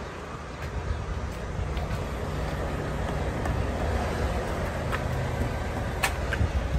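A motor vehicle's engine running with a steady low rumble that grows slightly louder, and a couple of sharp clicks near the end.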